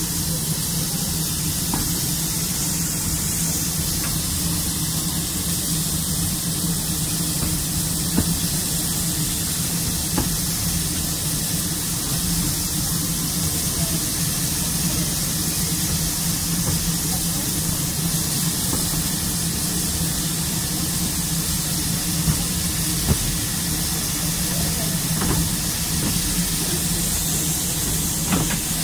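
Small saddle-tank steam locomotive on the move, heard from on board: a steady hiss of steam over a constant low rumble, with a few single sharp clicks from the running gear or rail joints.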